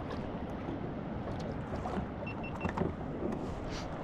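Water lapping against the hull of a small boat at rest on the water, with a few small knocks. About two and a half seconds in, three short, high electronic beeps in quick succession.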